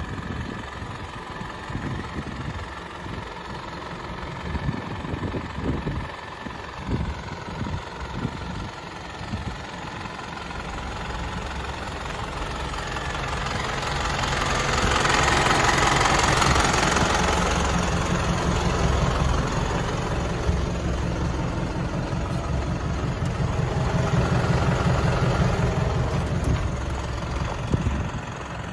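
Hino S05C four-cylinder diesel engine of a Hino Dutro truck idling steadily, growing louder about halfway through and easing off a little towards the end.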